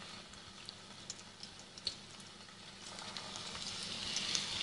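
Flour-dredged pike pieces sizzling in hot sunflower oil in a frying pan, with scattered small crackles. Faint at first, the sizzle grows louder about three seconds in as more pieces are laid into the pan.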